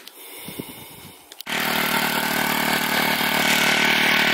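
The rototiller's 4 horsepower Briggs & Stratton single-cylinder four-stroke engine, running steadily now that its clogged carburetor screens have been cleaned. Faint knocks come first, then about a second and a half in the engine comes in suddenly at full loudness.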